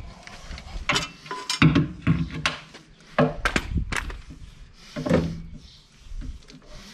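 Irregular metal clanks and knocks as a steel tool is handled and set against a tractor wheel rim, a dozen or so separate hits, some ringing briefly.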